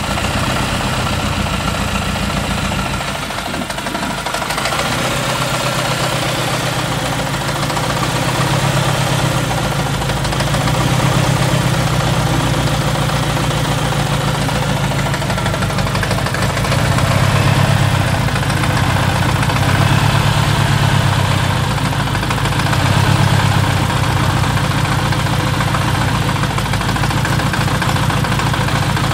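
Saab 9-3's turbocharged four-cylinder engine idling under the open bonnet, a steady low hum that swells slightly in level a few times.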